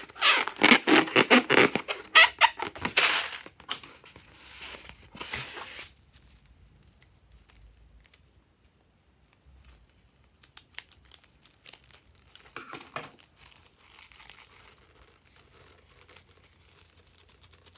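Rubber balloon squeezed and rubbed between the hands, giving a loud, rapid crackling squeak for about three and a half seconds and a shorter burst about five seconds in. Later come a few sharp snips of scissors cutting into the balloon.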